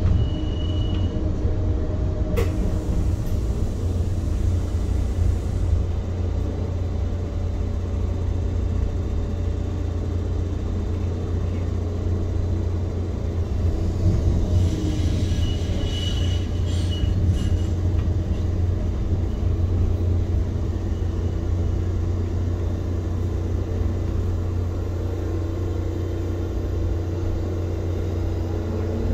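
Škoda ForCity Smart Artic tram running, heard from inside the passenger car: a steady low rumble from the running gear and motors. A brief thin high squeal comes near the start and again about halfway through.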